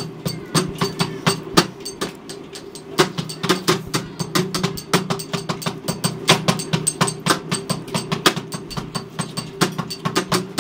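Rhythmic percussion: sharp, bright strikes several times a second in a steady pattern over a low sustained tone.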